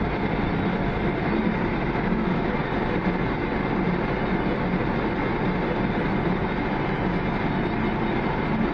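Heavy farm machinery running steadily: a continuous engine drone with a rattling clatter over it.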